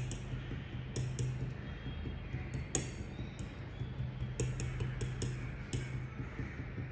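Metal fork pricking (docking) thin rolled lavash dough on a marble board: irregular clusters of sharp clicks as the tines tap through the dough onto the stone, so it won't puff up in the oven. A steady low hum runs underneath.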